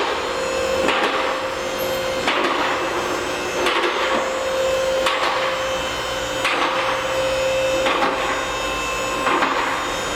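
Honda Fit's front suspension creaking and knocking in a steady rhythm, one stroke about every second and a half: the front-suspension noise the car was brought in for.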